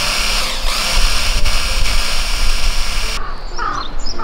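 Stick blender with a chopper bowl blending a banana smoothie: a steady motor whine that dips and picks up again about half a second in, then cuts off suddenly about three seconds in. A few crow-like calls follow near the end.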